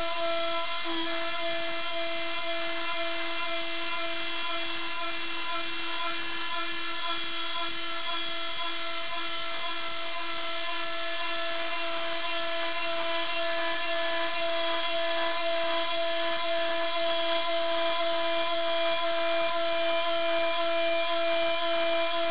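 CNC router spindle running with a steady high-pitched whine while milling a pulley, under a lower tone that pulses evenly about twice a second.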